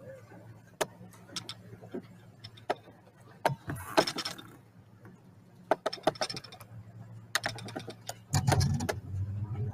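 Irregular mechanical clicks and rattles of fishing reels and tackle as the anglers cast and reel from the boat deck. A louder low rumble comes in about eight seconds in.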